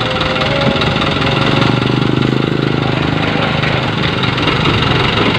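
Light dump truck's diesel engine running under load as it drives over a gravel pile, its note growing louder about a second in and easing off after about three seconds.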